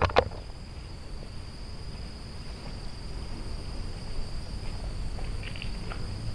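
Insects trilling steadily at one high pitch over a low rumble, with a couple of sharp clicks right at the start.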